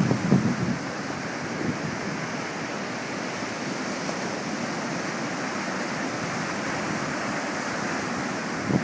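Steady wash of surf on the Gulf, an even rushing noise with no distinct breaking waves.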